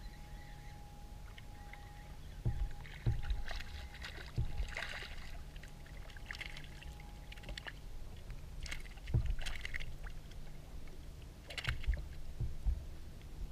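Small waves lapping and splashing against a small floating craft, with a few hollow knocks against its hull at uneven intervals.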